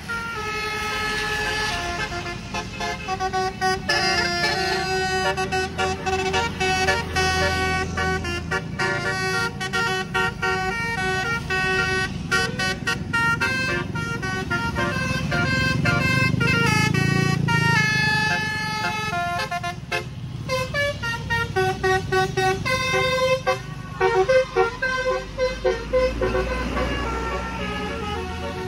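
Bus fitted with a Basuri telolet multi-trumpet horn playing a melody of stepped horn notes, choppy and staccato near the end. Underneath is a low bus engine rumble.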